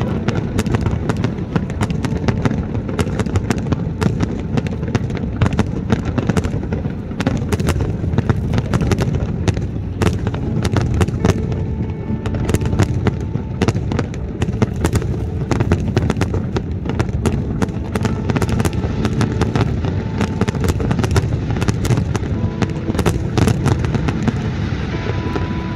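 Fireworks display: a dense, continuous barrage of bangs and crackles, many per second, over a steady deep rumble.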